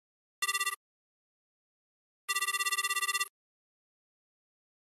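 Telephone ringing sound effect: a rapidly trilling electronic ring, first a brief fragment about half a second in, then a full one-second ring about two seconds later.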